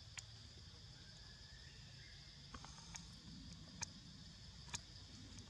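Near silence: a faint, steady, high-pitched hum of insects, broken by about five sharp clicks, the loudest two in the second half.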